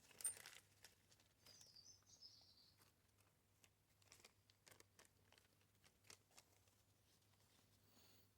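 Near silence, with a few faint clicks and light handling of small carburettor parts, one sharper click near the start.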